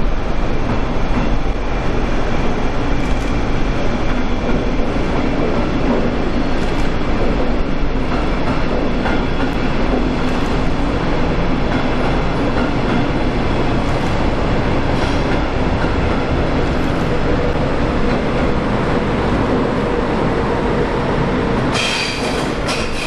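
A train running past on the track, a steady loud rumble of wheels on rails, with brief high-pitched squeals near the end.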